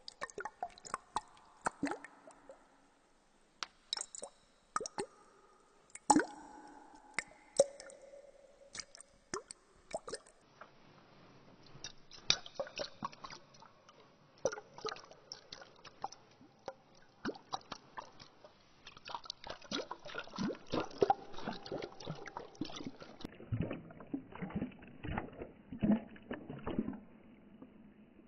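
Water dripping and plopping with wet squishing sounds: quick irregular drops, some with a short pitched plop. The sound changes abruptly about ten seconds in and again near twenty-three seconds, growing busier, and dies away shortly before the end.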